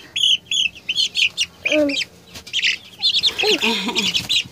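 Young chicks, a couple of weeks old, peeping: a fast, continuous run of short, high, arched cheeps from several birds at once.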